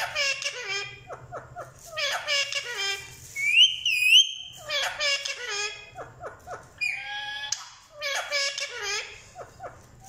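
Indian ringneck parakeet chattering in repeated bursts of high, speech-like mimicry, with one clear two-note whistle about three and a half seconds in.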